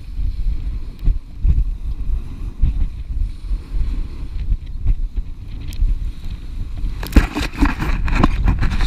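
Wind buffeting the microphone, a loud, uneven low rumble, with a flurry of knocks and rustles of handling about seven seconds in.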